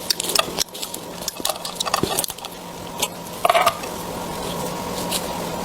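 Close-up eating sounds: irregular wet clicks, crackles and smacks of food being handled and bitten, with a louder burst about three and a half seconds in, over a faint steady hum.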